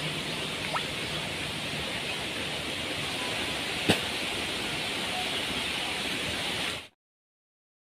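Steady rushing noise of the flowing river, even in level, with one sharp click about four seconds in; the sound cuts off abruptly to silence near the end.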